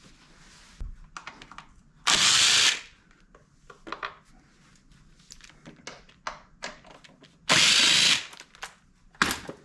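A cordless power driver spun in short bursts, two longer runs and a brief one near the end, backing out fasteners to remove a motorcycle oil tank, with light clicks and knocks of tools and parts between.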